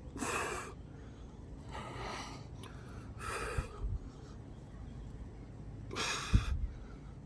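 A man breathing hard through sets of push-ups: four short, forceful exhales spaced a second or two apart, with a few dull low knocks of his body shifting on the floor.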